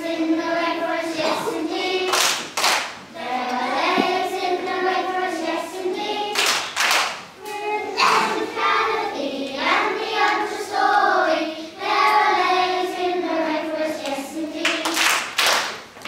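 A group of young children singing a song together, with a few sharp hand claps.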